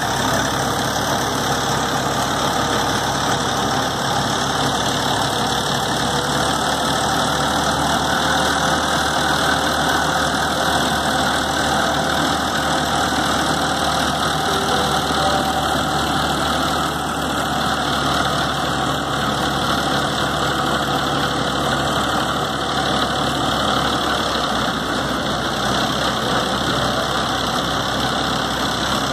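Tractor engine running steadily while powering a tractor-mounted Parazzini boom sprayer that is spraying.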